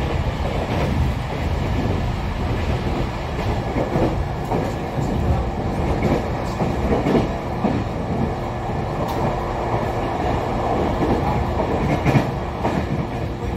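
JR Kyushu 817 series electric train running at speed, heard from inside the car: a steady rumble of wheels on rail, with scattered clicks over rail joints, the sharpest about 12 seconds in.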